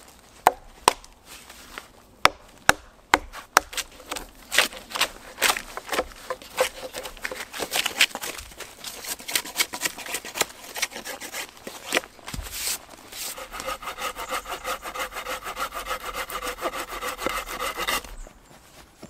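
Knife blade striking and scraping along a wooden pole in sharp, separate strokes as its bark is stripped off. About two-thirds of the way through, a hand folding saw takes over, cutting the pole in fast, even back-and-forth strokes that stop abruptly near the end.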